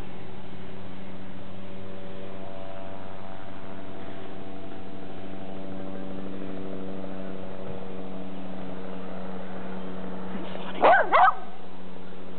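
Puppy barking twice in quick succession near the end, over a steady low hum.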